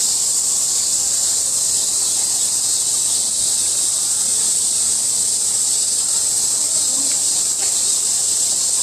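Chorus of cicadas buzzing in summer heat, a steady high hiss-like drone that never breaks.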